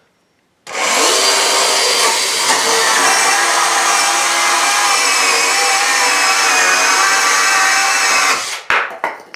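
Bosch EasyCut 12 cordless NanoBlade saw cutting through a wooden roof batten. It starts under a second in, runs steadily for about seven and a half seconds and then stops, followed by a few short knocks.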